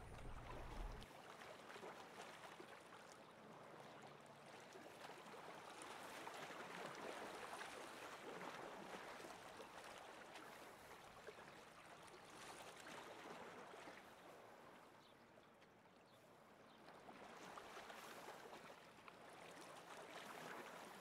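Faint, soft lapping of lake water against a stony shore, slowly swelling and fading.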